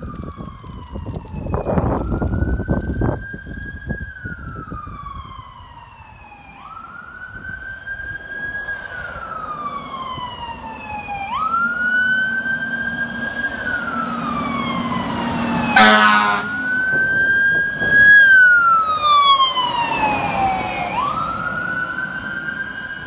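Fire apparatus siren wailing, each cycle rising quickly and falling slowly, about every four to five seconds. There is a short horn blast about sixteen seconds in, and the trucks' engines rumble low as they pass.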